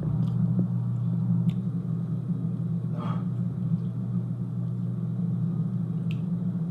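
Dishwasher running in the background: a steady low hum, with a few faint clicks over it.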